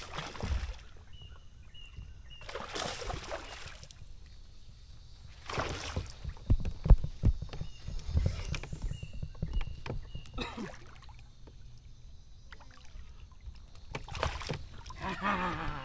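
Water splashing and sloshing around a fishing kayak in several short swishes, with a cluster of low knocks on the kayak near the middle.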